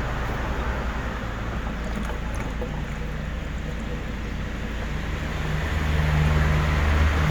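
A car engine running steadily at idle, a low even hum over a noisy background, growing louder about five seconds in.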